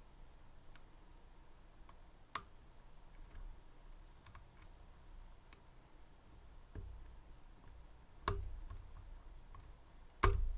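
Faint, scattered metallic clicks of a lock pick working the pin stack of a Medeco M3 high-security lock cylinder, with sharper clicks about two seconds in, past eight seconds and just after ten seconds.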